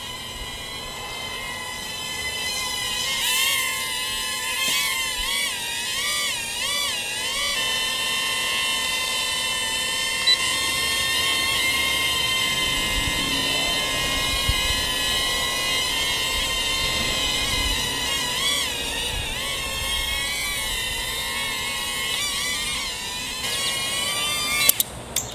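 Tenergy Eggsplorer toy quadcopter's tiny propeller motors giving a high-pitched whine as it hovers. The pitch wavers up and down for a few seconds as it is steered, then holds steady. Near the end it touches down with a few clicks and the motors cut off.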